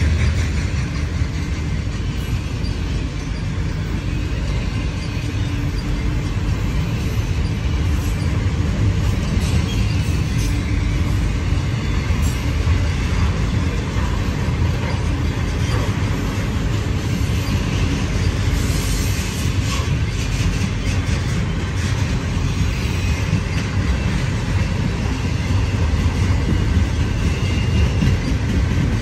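Freight train of autorack cars rolling past: a steady, loud rumble of wheels on the rails, with scattered clicks.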